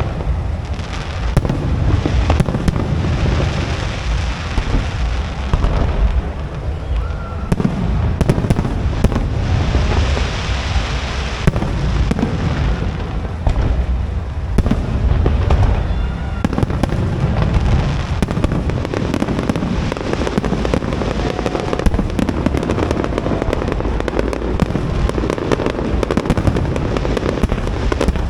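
Aerial fireworks display going off without a break: a continuous barrage of shell bursts and deep booms, with stretches of dense crackling about three and ten seconds in.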